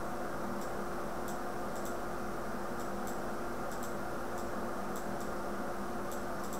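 Faint, irregular computer-mouse clicks, about one or two a second, over a steady electrical hum and hiss.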